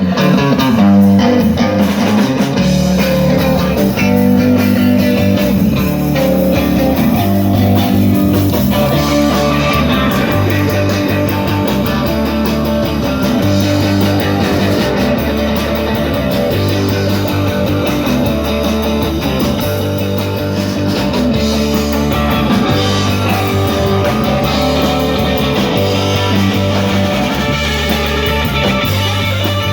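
A band playing an instrumental passage: guitar over a bass line that repeats in a steady pattern about every two seconds.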